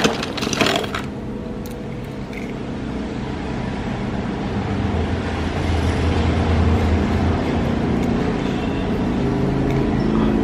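Toy vehicles clattering against each other as a hand pulls them from a cardboard box, then a steady vehicle-like running noise with a low hum that gradually grows louder.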